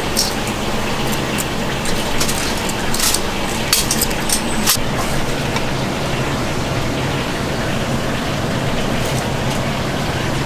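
Restaurant kitchen ambience: a steady rushing noise with a low hum, and scattered clinks of dishes and utensils during the first five seconds.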